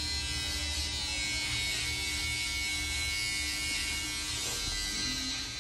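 Electric hair clippers buzzing steadily as they trim a child's fringe.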